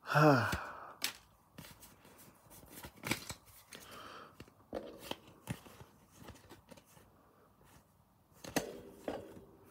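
Pokémon trading cards being slid and flipped one by one through a hand-held stack: soft, irregular card clicks and rustles. A short falling vocal sound comes right at the start and a brief murmur near the end.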